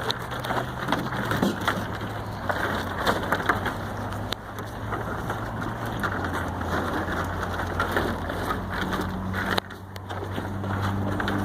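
Cows munching kettle corn: a dense, irregular crunching as they chew the popcorn, with a brief lull near the end.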